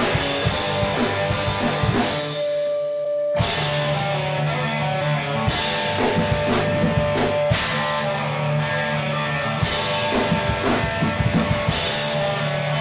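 Electric guitar and drum kit playing instrumental rock. A little over two seconds in the drums stop and a single guitar note rings on for about a second, then the guitar and drums come back in together.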